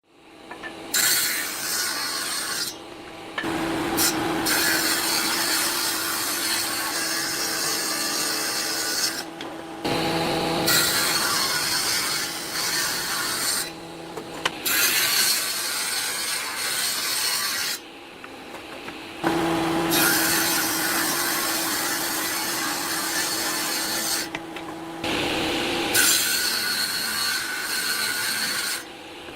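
A power tool working wood: a steady motor hum under a loud rasping, grinding noise, in stretches of a few seconds that break off suddenly and start again.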